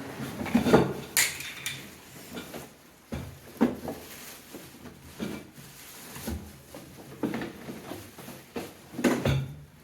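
Baby dining chair parts and packaging being unpacked and handled: a string of separate knocks, scrapes and rustles, the loudest about a second in and another near the end.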